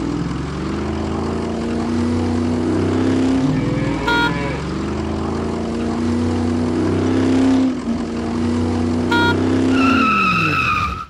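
Truck engine sound revving up in repeated rising sweeps as the truck moves off and gathers speed, then winding down near the end. A short beep about four seconds in and again about nine seconds in.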